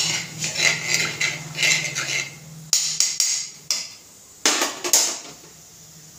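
A metal spoon stirs cumin seeds in oil in a metal kadhai, scraping and clinking against the pan for about two and a half seconds. Then come several sharp metal knocks, the loudest pair near the end.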